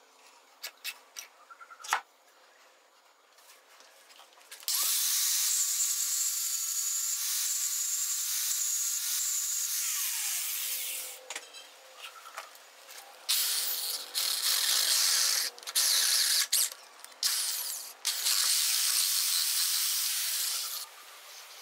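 A few light metal clicks as a small metal disc is set on a bench vise, then an electric drill bores through the disc: one long run from about five seconds in with a steady whine that winds down near ten seconds, then a string of short bursts with brief stops.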